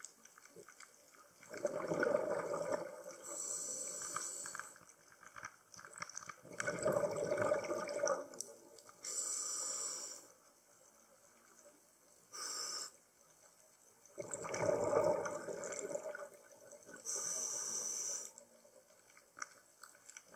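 Scuba diver breathing through a regulator underwater: three breaths about six seconds apart, each a gurgling rush of exhaled bubbles followed by a short hiss of inhaled air.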